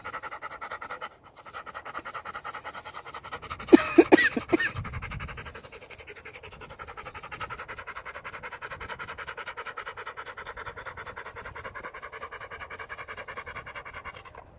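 Rottweiler panting rapidly, several breaths a second, with one short, louder pitched sound about four seconds in.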